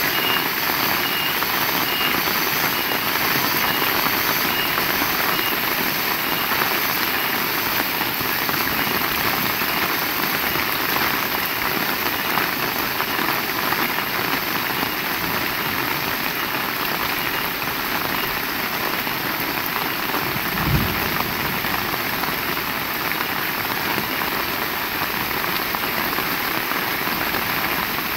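Heavy rain falling steadily, a dense even hiss, with a single brief low thump about three-quarters of the way through.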